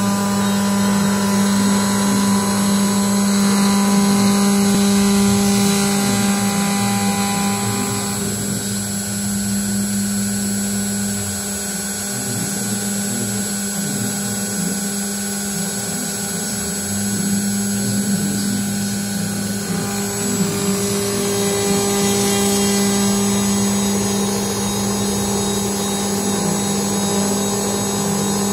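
CNC router spindle running with a steady hum while its end mill cuts a pocket in an aluminium plate, with a higher ringing cutting whine. The whine drops away from about a third of the way in until about two-thirds through, then returns.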